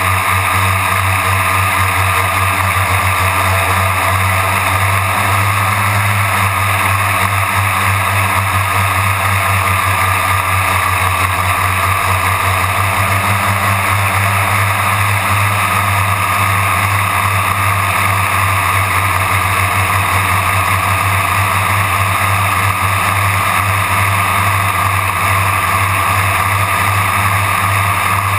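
Quadcopter's electric motors and propellers running with a steady, loud hum, picked up by a camera mounted on the craft itself.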